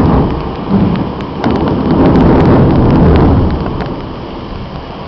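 Thunder rumbling during a thunderstorm: a loud clap right at the start, then a long rolling rumble that builds about a second and a half in and dies away after a couple of seconds, over steady rain.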